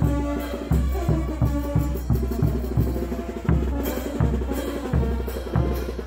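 Bolivian brass band playing: sousaphones and other brass sound sustained notes over a steady bass-drum beat of about three strokes a second.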